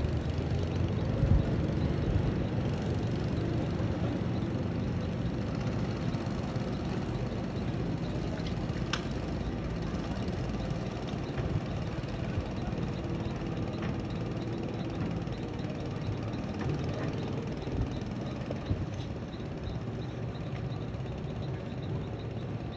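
An engine running steadily with a low rumble, with a few light knocks and clicks over it.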